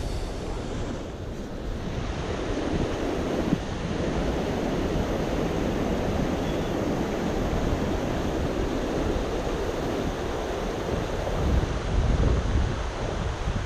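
Mountain stream water rushing steadily, with wind buffeting the microphone in low rumbling gusts that swell near the end.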